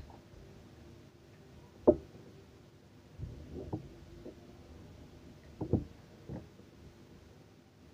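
A few scattered knocks and clatters of objects being handled in a small room, the sharpest about two seconds in.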